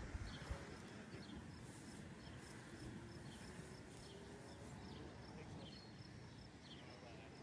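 Faint outdoor ambience: a soft high chirp repeating every half second or so over a low rumble of wind, with a few soft knocks right at the start.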